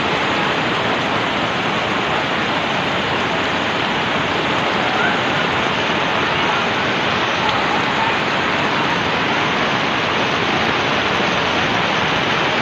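Fast-flowing typhoon floodwater rushing through a village, with heavy rain falling, heard as a loud, steady, even wash of noise.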